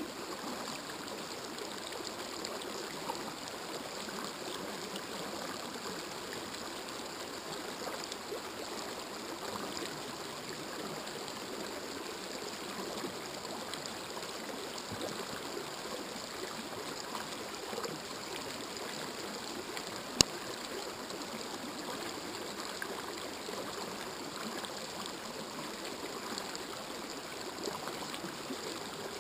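Shallow river rushing steadily over rocks and stones, with one sharp click about two-thirds of the way through.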